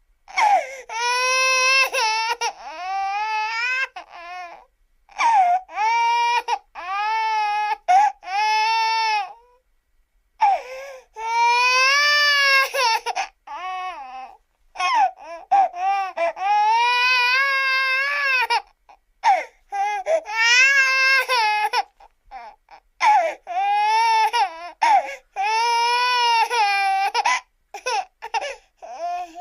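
Baby crying hard: a run of long wailing cries, each one to three seconds, with short gaps for breath between them.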